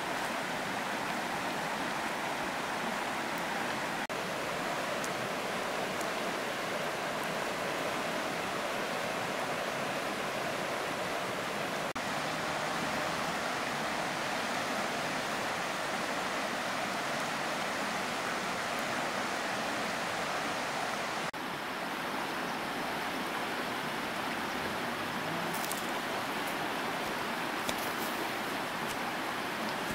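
Steady rushing of water, an even hiss without pitch, that shifts abruptly about two-thirds of the way through; a few faint clicks come near the end.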